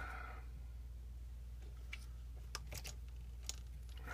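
A few faint, sharp clicks and light taps, spaced out, over a steady low hum.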